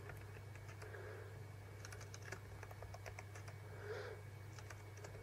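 Faint, scattered keystrokes on a laptop keyboard, typing in characters one after another, over a low steady hum.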